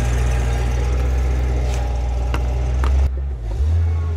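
Large propane-powered forklift's engine running steadily as the truck drives along, with a few sharp clicks and knocks. About three seconds in the sound cuts off abruptly and gives way to a quieter, uneven low rumble.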